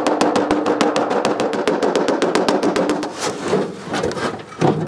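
Rapid, even hammer taps on the steel front panel of a David Brown 990 tractor's bonnet, about eight a second, knocking out the old emblem; the tapping stops about three seconds in, and a single thump follows near the end.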